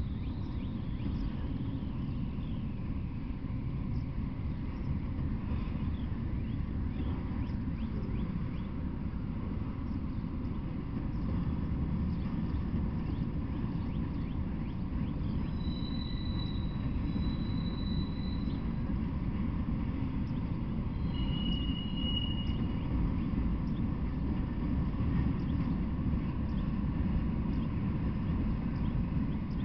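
Freight train of autorack cars rolling past: a steady low rumble with faint scattered clicks, and a few brief high-pitched tones a little past halfway.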